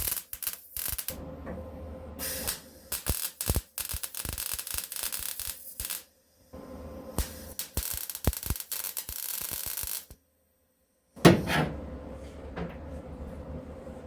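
MIG welder laying short crackling tack and stitch welds on a steel rust-repair patch panel, in bursts of one to a few seconds with pauses between. Near the end comes one sudden loud knock.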